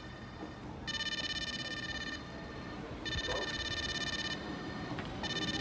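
Electronic warning signal at a beach-train stop, a high ringing tone sounding in repeated bursts about a second and a half long with short gaps between them, typical of a door-closing or departure alert.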